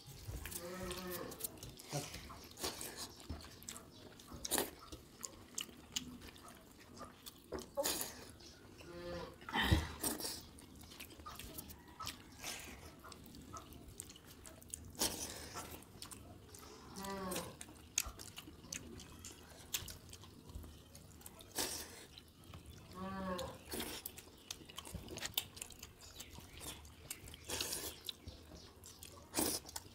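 Close-up eating sounds: hands squishing and scooping rice soaked in water on steel plates, with wet smacking and chewing. There are also three short pitched voiced sounds, one near the start and two more later.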